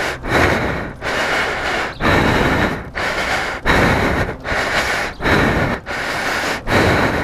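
Heavy, rapid breathing of a man out of breath from pushing a motorcycle, each hard breath in and out loud and close on the microphone. The breaths come in an even rhythm, about one rush every three-quarters of a second.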